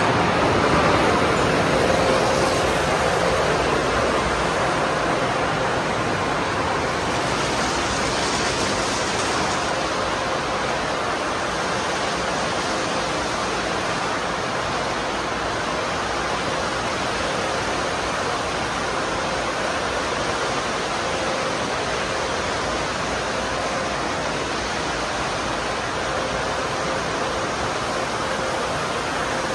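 Tunnel car wash running: a steady rush of water spray and spinning cloth brushes, with a faint steady hum underneath.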